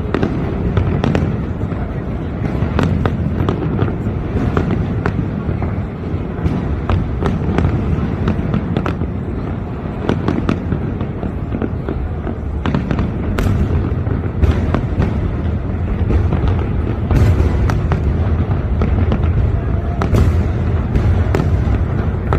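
Fireworks going off without a break: a dense stream of cracks and pops over a steady low rumble of booms, with several sharper, louder bangs in the second half.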